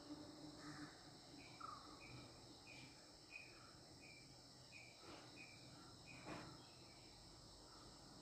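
Near silence, with faint short chirps repeating about every half second.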